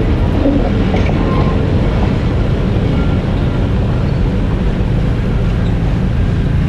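Farm tractor engine running steadily as it tows a wagon past on gravel, a low rumble.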